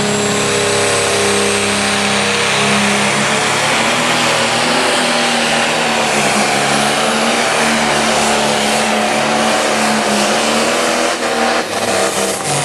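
John Deere pro stock pulling tractor's diesel engine running flat out as it drags the weight-transfer sled, with a thin high whine that climbs slowly over the first seconds. The engine sound drops away about eleven seconds in as the pull ends.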